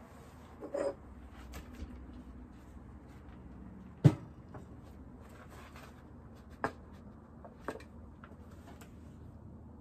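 A few scattered knocks and clunks of things being handled and set down, one sharp knock about four seconds in louder than the rest, over a faint steady background.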